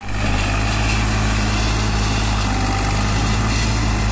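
Deutz-Fahr 50 hp tractor's diesel engine running steadily under load as the tractor hauls a trailer up a dirt bank with its rear wheels slipping.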